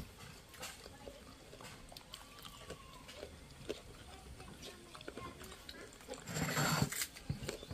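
Faint sounds of hand-eating from plates: small clicks and taps, with faint animal calls in the background. About six seconds in comes a short, louder rush of noise.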